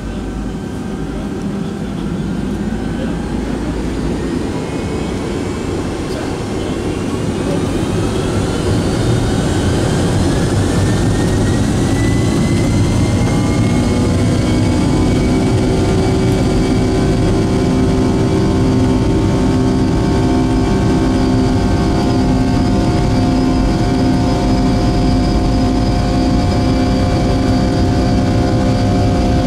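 Boeing 757-200's Pratt & Whitney PW2000 turbofan engines spooling up to takeoff thrust, heard from inside the cabin. Several whining tones rise together over the first dozen seconds, then hold steady over a loud rumble as the engines run at takeoff power.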